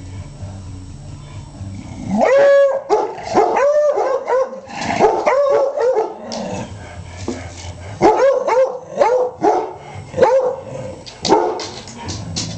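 Dogs barking and howling in play: a run of short barks and drawn-out howling bays that starts about two seconds in and goes on with brief pauses.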